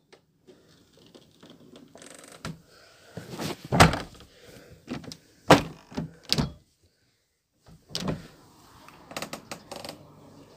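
White plastic-framed glass door being handled and swung: a string of separate clunks and thuds from the door leaf and frame. The loudest come about four and five and a half seconds in, with a few more later and faint handling noise between.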